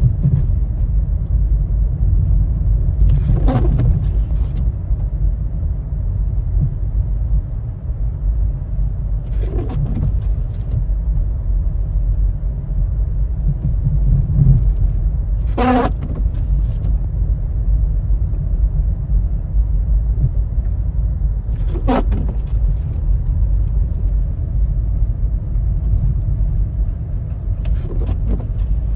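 Steady road and engine rumble heard from inside a car driving on snowy roads. A short sweep, some with a squeak, repeats about every six seconds.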